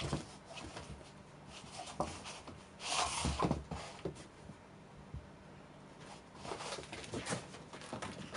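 An American Shorthair and a Ragdoll cat play-fighting on a tatami mat: scattered bumps and scuffles of paws and bodies, with a louder rustling scuffle about three seconds in.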